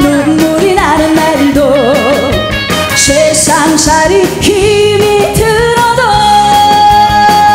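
A woman sings a Korean trot song live with a full band behind her, her voice wavering with vibrato. About six seconds in she holds one long note.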